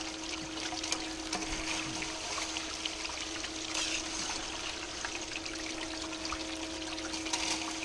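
Water pouring and rushing down a small gold sluice box, over a steady motor hum from the pump that feeds it. A few faint clicks of gravel sound in the flow.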